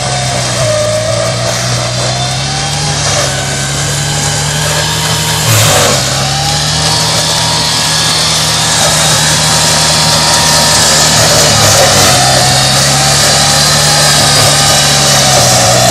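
Ride-on mower's engine running steadily under load as its front-mounted cutter mows tall grass, with a higher whine over the engine note. The engine note dips briefly with a short knock about five and a half seconds in, and the sound grows louder toward the end.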